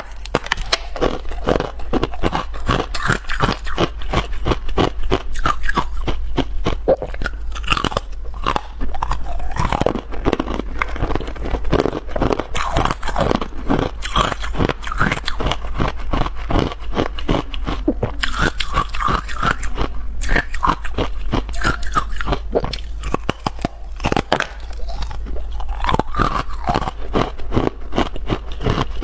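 Close-miked biting and chewing of hard frozen ice discs coated in matcha powder: a dense, continuous run of sharp crunches and cracks as the ice breaks between the teeth, over a steady low hum.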